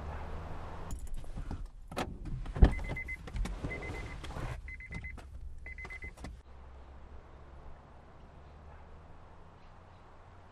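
Sounds inside a car: knocks and light rattling, with one loud thud about two and a half seconds in, then the car's warning chime beeping four times, about once a second, before it stops.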